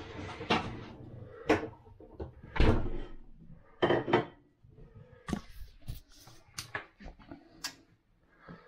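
Household handling noise: a string of sharp knocks, clicks and clatters as things are moved about and a door is opened and shut, about eight separate knocks, the loudest about two and a half and four seconds in.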